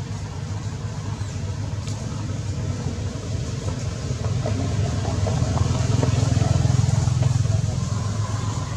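A low, steady rumble that swells to its loudest about six to seven seconds in, then eases.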